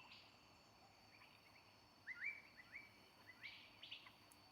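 Very faint chirping of small birds: a handful of short, upward-sliding chirps scattered through the second half.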